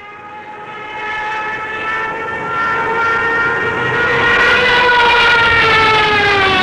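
Propeller plane engine droning as it approaches, growing steadily louder, then falling in pitch over the last second or two as it passes: a flyby.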